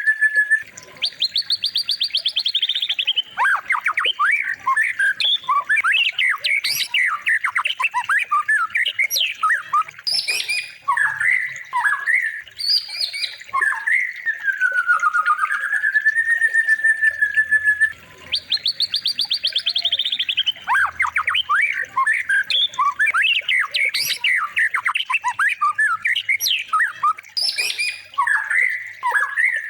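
Songbird recording played as a murai batu masteran: a loud, varied string of whistles, chirps and fast rattling trills, with long smooth rising-and-falling whistles between phrases. The same sequence repeats about every 18 seconds, as a looped track does.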